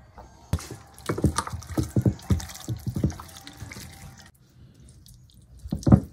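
Olive oil going onto seasoned raw chicken: a quick, irregular run of wet drips and splats, a pause, then a couple more splats near the end.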